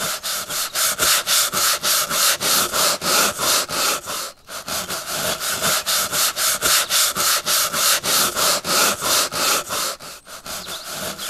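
Rapid rhythmic rubbing strokes, about four a second, with a brief pause about four seconds in.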